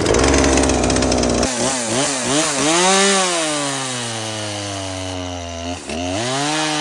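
Two-stroke chainsaw running at high revs while cutting wood. Its engine pitch sags and recovers under load, with a sudden change in the sound about a second and a half in and a brief dip near six seconds.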